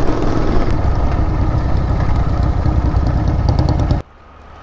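Royal Enfield Interceptor 650's parallel-twin engine running steadily under way, with road noise. It cuts off abruptly about four seconds in, leaving a much quieter background.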